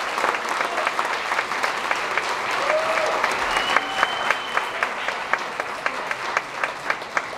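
Audience applauding in a hall: a dense wash of many hands clapping, with one clapper's sharp, evenly spaced claps standing out close by and a voice rising briefly over it about three seconds in.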